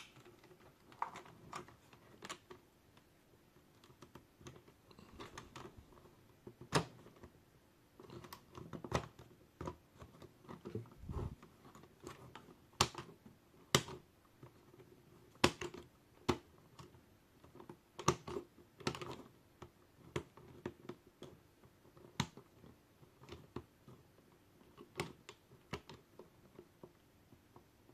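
Irregular sharp clicks and taps of hard 3D-printed plastic track links being handled and joined, with pliers pushing a filament pin through the links' hinge.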